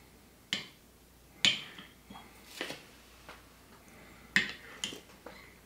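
Small metal tasting spoons clinking and tapping against small espresso cups: several sharp clinks at uneven intervals as the shots are stirred and spooned out.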